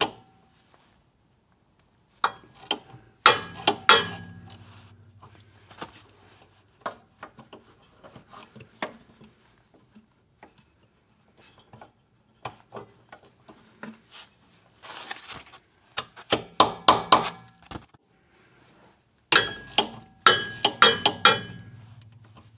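Hand ratchet with a triple-square bit on an extension clicking in several quick runs as the CV joint flange bolts are turned, with scattered single clinks of metal tools.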